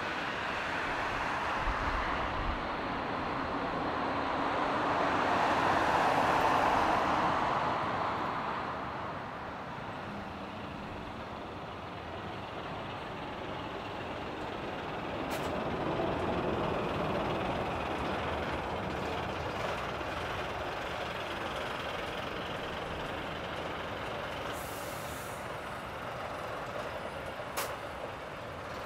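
Boeing 787-8 airliner landing and rolling out: a rushing jet noise that swells to its loudest about six seconds in, then settles to a lower steady sound with a smaller rise around sixteen seconds.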